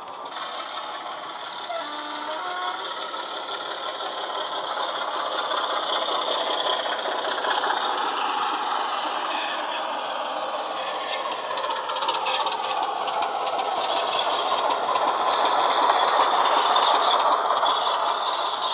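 Model Class 24 diesel's Loksound 5 sound decoder playing a Class 25 sound file through a small sugar-cube speaker: a Sulzer diesel engine running under power. The model's wheels and coaches rattle over the track, and the sound grows louder toward the end.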